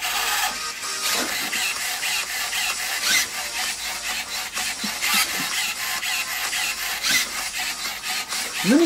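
UBTECH Alpha 1S humanoid robot's servo motors whirring and buzzing in quick, jerky bursts as it dances, with a few knocks from its moving limbs and feet.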